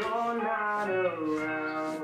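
Background music: guitar with a singing voice carrying a gliding melody.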